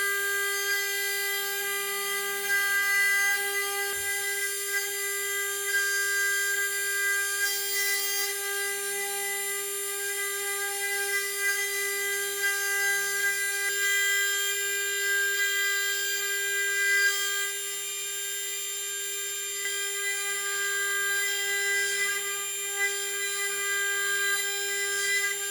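High-speed CNC spindle running with a steady high-pitched whine, its pitch matching about 24,000 RPM, as a 4 mm ceramic end mill mills Inconel 718 at a slow 600 mm/min feed. A single sharp click about four seconds in.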